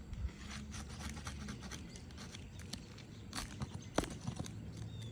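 Scattered clicks and scrapes of hand-tool work on asphalt roof shingles, with one sharp knock about four seconds in.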